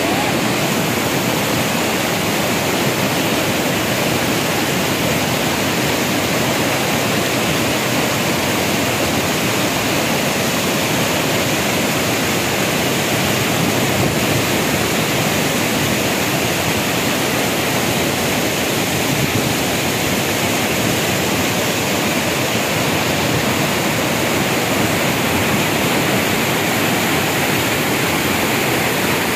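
Mountain stream cascading over rocks: a steady, unbroken rush of white water.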